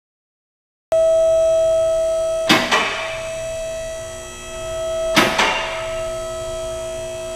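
BendPak two-post car lift raising: the hydraulic power unit runs with a steady whine, and the safety locks clack three times about two and a half seconds apart as the carriages climb past each lock position. The sound starts about a second in.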